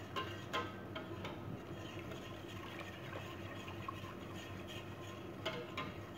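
Wire whisk stirring béchamel sauce in a stainless steel pot, its wires clicking against the pot a few times in the first second and twice again near the end, over a steady low hum.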